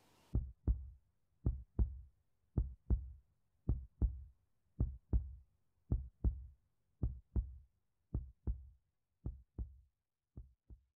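Heartbeat sound effect: about ten double 'lub-dub' thumps a little over a second apart, the last pair fainter before it stops.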